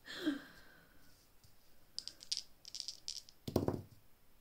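Dice shaken in the hand, a quick run of rattling clicks about two seconds in, followed by a single duller knock.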